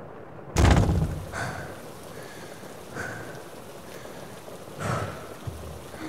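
Steady rain falling, with a loud crack of thunder about half a second in that rolls off over the next second, and a second, weaker swell of thunder near five seconds.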